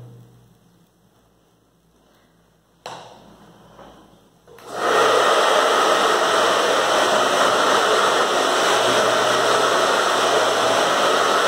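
A hand-held hair dryer is switched on about four and a half seconds in and blows steadily, drying freshly brushed metallic acrylic paint on an MDF box. Before it starts there are a couple of handling knocks.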